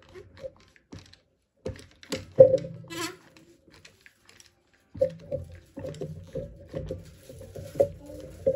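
DeWalt one-handed trigger clamps being placed and squeezed against a scooter tire to push its bead off the rim: scattered plastic clicks and knocks, the loudest about two seconds in, then a quick run of ratcheting clicks from about five seconds in as the clamp is pumped tight.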